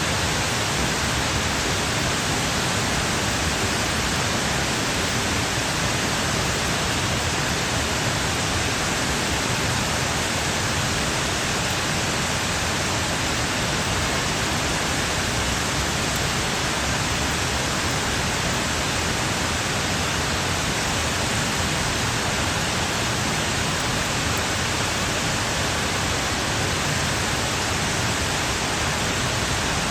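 Steady rain falling: an even hiss with no single drops standing out and no change in level.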